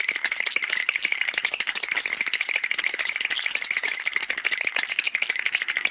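Cartoon sound effect: a fast, continuous rattle of densely packed clicks, bright in tone and steady throughout.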